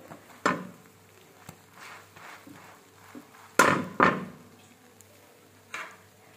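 A few sharp knocks and clatters of kitchen utensils and cookware. The two loudest come close together a little past halfway, with softer knocks before and one near the end.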